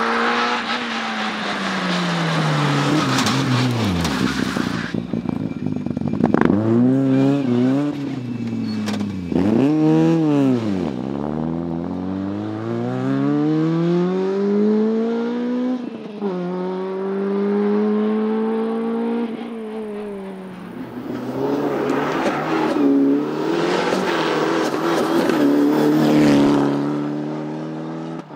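Rally car engine revving hard through a stage: the revs climb and fall again and again with sudden drops between gears, and the pitch sweeps as the car goes by. A noisy rush sits over the engine near the start and again toward the end.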